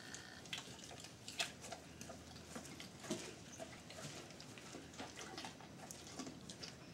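A horse chewing a piece of apple with its mouth open: irregular crisp crunches, two of them louder, about a second and a half and three seconds in.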